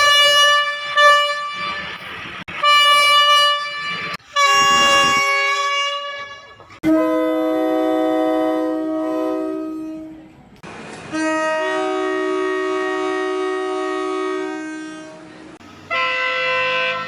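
Thai railway train air horns sounding a series of blasts: several shorter blasts in the first six seconds, then two long multi-tone chords of about three and four seconds, and another blast starting near the end.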